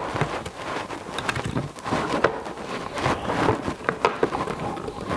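Hands rubbing and scraping over a plastic 5-gallon bucket lid, a dense, irregular crackle of small clicks, as the lid is handled to fit a ceramic filter's stem through its drilled hole.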